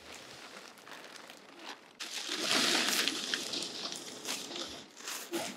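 Tent fabric rustling and crinkling as it is pulled and spread across the ground, louder for a couple of seconds starting about two seconds in.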